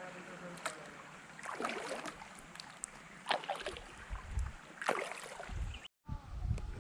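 Kayak paddle strokes in river water: three splashy dips about one and a half seconds apart over a low steady wash. The sound cuts out completely for a moment near the end.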